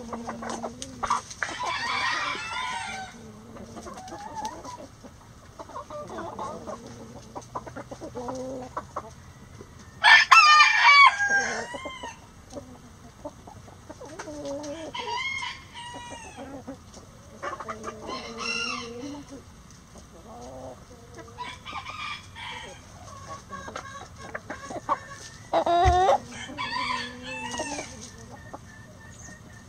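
Several roosters crowing in turn, one loud crow about ten seconds in and another near the end, with hens clucking between the crows.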